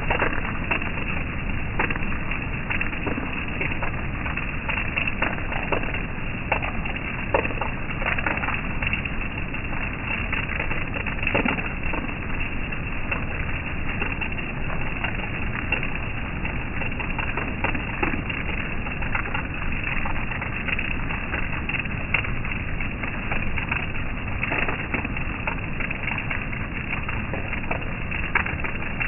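Steady rain falling: a dense, even hiss with many irregular drops ticking through it.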